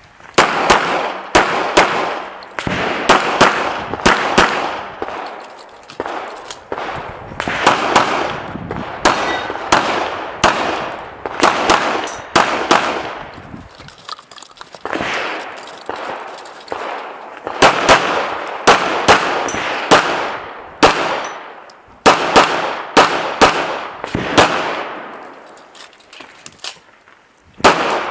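Rapid gunshots fired in quick pairs and short strings, with brief pauses between groups, each shot echoing.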